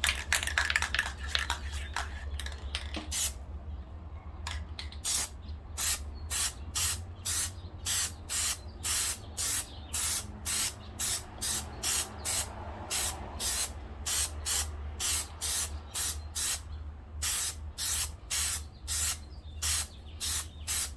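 Aerosol can of Plasti Dip metalizer spraying a light coat: a hiss for the first few seconds, then short, even bursts about twice a second.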